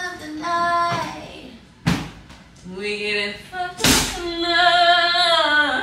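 A woman singing unaccompanied, holding long notes that slide and waver, with two sharp thuds about two and four seconds in.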